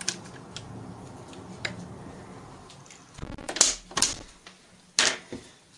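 Sharp clicks and brief scrapes from hands working at a PVC window sash and its fittings. A few faint ticks come first, then a cluster of loud clicks about three and a half to four seconds in and one more sharp click about five seconds in.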